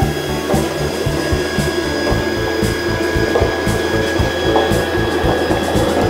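Electric blower of a playground ball-launcher tower running with a steady whine as it sends plastic balls up its tube, over background music with a regular beat.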